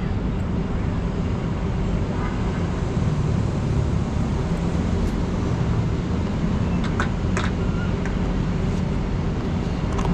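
Steady low rumble of city road traffic. A couple of footsteps land close by about seven seconds in.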